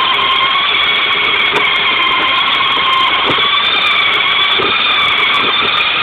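Remote control car's motor and gears whining at a steady pitch, heard up close from the car itself as it drives over pavement.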